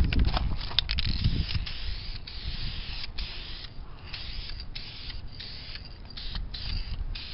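Rust-Oleum gloss black aerosol spray paint can hissing in a run of short bursts with brief gaps between them. Wind rumbles on the microphone in the first second or two.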